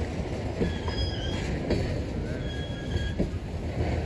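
CN grain train's freight cars rolling past with a steady low rumble, their wheels squealing in short, high, on-and-off tones as they take the curve, and a few sharp clacks over rail joints.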